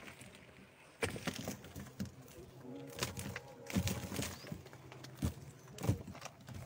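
Handfuls of earth thrown into an open grave, landing on the coffin lid as several separate thuds and patters.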